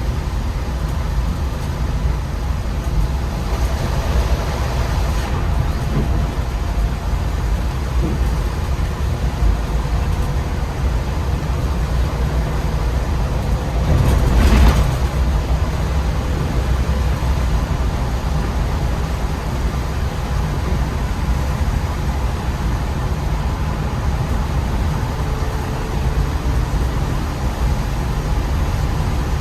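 MAN Lion's City articulated city bus on the move, a steady low rumble of engine and road noise. About fourteen seconds in, a brief louder rush swells up and fades.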